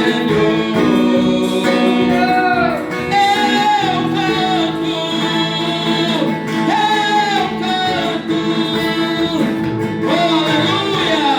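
Worship song: a singer's voice over acoustic guitar accompaniment.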